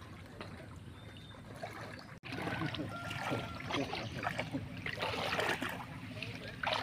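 Water sloshing and splashing around legs wading through knee-deep floodwater, in irregular strokes; it gets louder after about two seconds.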